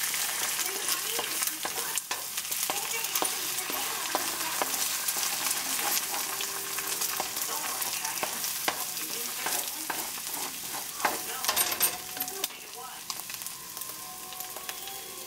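Eggs and turkey bacon sizzling in oil in a hot nonstick pan while a plastic spatula scrapes and taps through the eggs to scramble them, with many short clicks over the steady hiss. The sizzle eases a little near the end.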